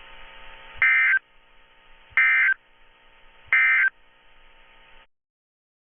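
Emergency Alert System end-of-message signal: three short, identical digital data bursts about 1.4 seconds apart over a faint steady hum, the coded tones that mark the end of the alert. The audio cuts to silence near the end.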